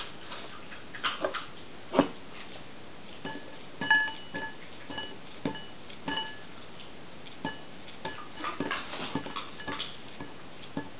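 Knife slicing a banana by hand over a porcelain bowl: irregular soft clicks and taps as the knife cuts and the slices drop into the bowl, the sharpest about two and four seconds in. From about three seconds in, short steady-pitched peeps repeat in the background.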